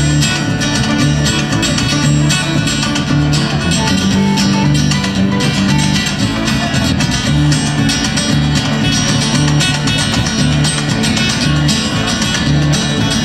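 Acoustic string band playing an instrumental break with no vocals: banjo and acoustic guitar picking and strumming, with fiddle, djembe and steady low bass notes underneath.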